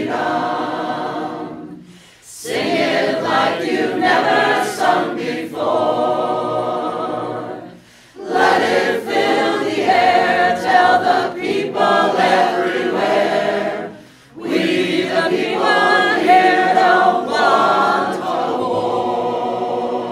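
Mixed community choir of women's and men's voices singing a cappella, in phrases broken by three brief pauses for breath.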